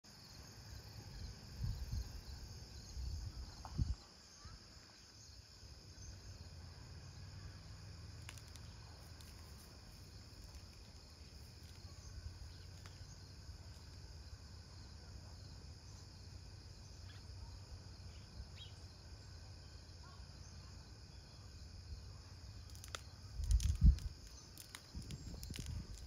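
Insects chirping in a steady high-pitched drone. A few dull low thumps come near the start, and a louder cluster comes near the end.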